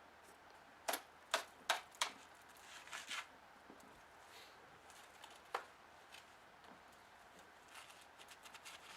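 Wooden concrete-form boards being knocked and pulled apart: four sharp knocks in quick succession, then a couple of softer ones and a single knock in the middle, with faint ticks near the end.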